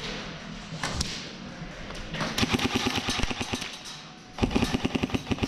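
Airsoft gun firing on full auto in two rapid bursts, each about a second long, the first a little past two seconds in and the second shortly after four seconds, with a single sharp click about a second in.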